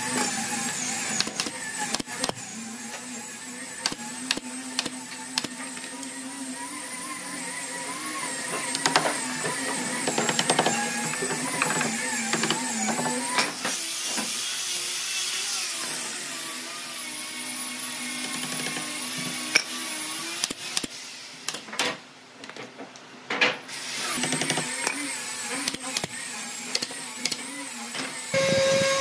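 High-speed power tool motor whining, its pitch wavering as it works, with scattered knocks and clicks. The whine drops away briefly a little past the middle.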